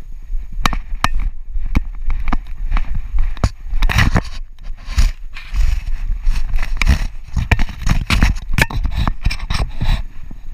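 A GoPro strapped to a walking dog's back jostling as she moves: irregular knocks, clicks and scraping from the camera mount, harness and leash, over a steady low rumble of handling noise.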